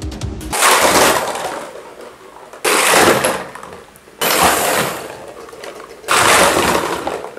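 A crashing sound effect, repeated four times about one and a half to two seconds apart, each starting suddenly and fading away over about a second, played as a toy excavator knocks over a stack of plastic jack-o'-lantern buckets.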